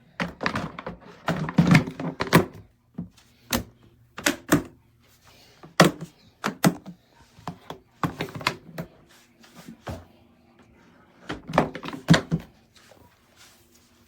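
Hard plastic parts of an enclosed cat litter box being handled, with bunches of knocks and clatters and some sharp single thunks.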